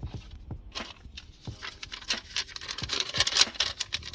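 Paper rustling and crackling as a folded sheet is handled, with many small crisp clicks.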